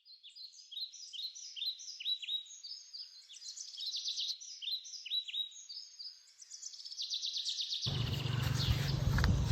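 A small bird chirping, a steady run of short, high, downward-sliding chirps about two or three a second, turning into a denser, quicker chatter near the end. About eight seconds in, a louder rushing noise with a low rumble starts under it.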